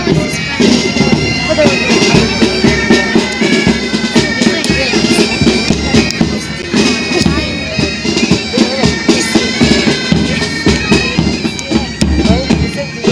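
Military pipe band playing: bagpipes sounding a melody over steady drones, with drums beating time underneath.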